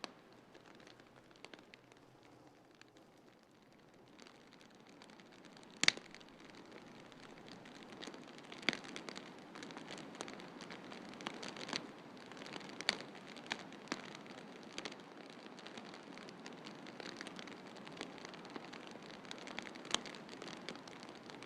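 Wood fire in a fireplace crackling, with sharp pops scattered through it, the loudest about six seconds in, over a steady hiss that swells slightly near the middle.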